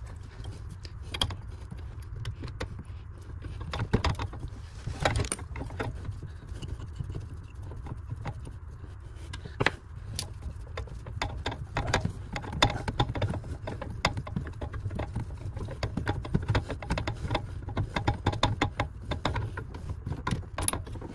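Irregular metallic clicks, knocks and rattles of hands and tools working on copper water pipe while a section is cut out of it, over a steady low hum.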